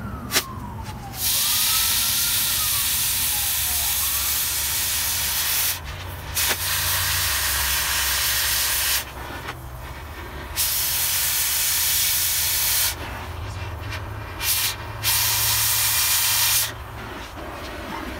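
Oxy-fuel cutting torch cutting steel on the truck frame: a loud, steady hiss in four long blasts of about two to four seconds each as the cutting oxygen is turned on and off. A faint siren rises and falls in the distance during the first few seconds.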